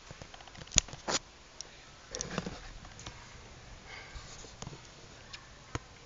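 Handling noise from a handheld camera being turned and carried: a sharp click a little under a second in, a second click just after, a brief rustle around two seconds, and another click near the end.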